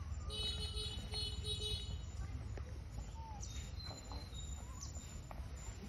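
Forest ambience with bird-like calls: a rapid pulsed trill of repeated notes in the first two seconds, then a few thin, short chirps. A steady low rumble runs underneath.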